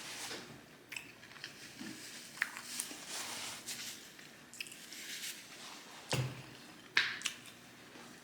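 Close-up chewing and biting of food: wet mouth clicks and squishing, with two sharper knocks about six and seven seconds in.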